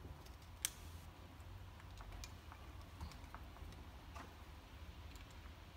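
Light, scattered metal clicks and taps as the Torque Locker's steel parts are handled and seated in the Can-Am differential, with one sharper click about two thirds of a second in.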